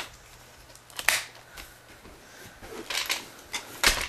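Plastic clicking and rattling of the stock high-capacity magazine being worked back and forth in the magazine well of a plastic Remington TAC-1 airsoft shotgun, the magazine wobbling loose in its well. A handful of sharp clicks, several close together about three seconds in and the loudest just before the end.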